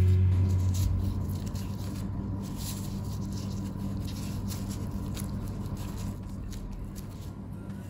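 Disposable plastic gloves crinkling and rustling with soft, scattered clicks as hands press and pinch cookie dough around marshmallows, over a low steady hum. Background music dies away in the first second.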